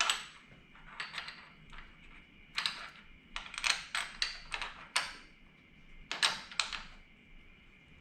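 Irregular clusters of small metallic clicks and clinks, as tools and bolts are handled while fitting handlebar riser hardware.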